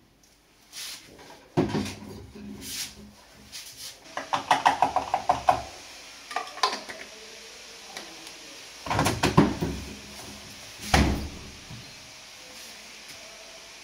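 Handling noises at a front-loading washing machine: a series of plastic knocks, clacks and rattles as its detergent drawer is pulled out, filled and pushed shut, with a heavy thump about eleven seconds in.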